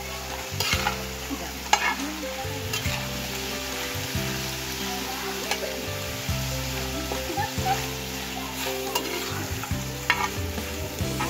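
Chicken pieces frying in butter on a tawa over a wood fire, sizzling steadily while a spatula stirs and turns them, with several sharp clicks and scrapes of the spatula on the pan.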